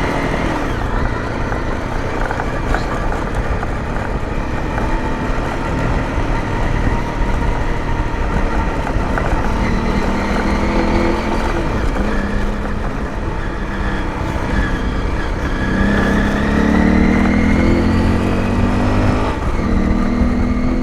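Honda CRF250L Rally's single-cylinder engine running as the bike is ridden, its pitch rising and falling with the throttle, over a continuous low rumble from the rough dirt road.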